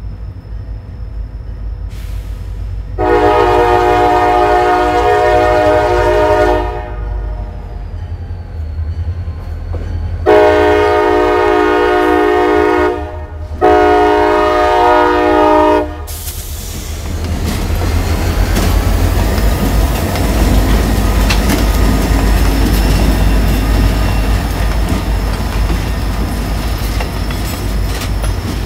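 CSX locomotive horn sounding three long blasts for a grade crossing, the last two close together. Then the rumble of the locomotive's diesel engine and the train's wheels builds as it reaches the crossing.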